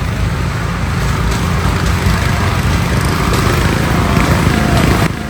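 Riding lawn mower engine running hard under racing load, loud and rough, dropping abruptly in level near the end.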